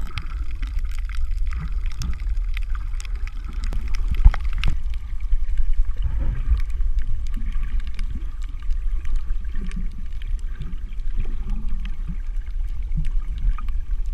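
Underwater sound heard through a GoPro camera's waterproof housing: a steady low rumble of water, scattered sharp clicks and crackles, and soft gurgling of bubbles.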